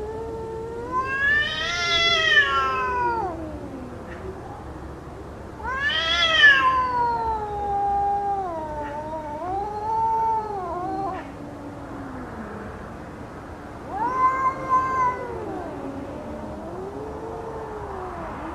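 Cats in a fight stand-off, yowling at each other: long, wavering caterwauls that rise and fall in pitch, with two voices overlapping. Louder outbursts come about two seconds in, around six seconds, and again near fifteen seconds.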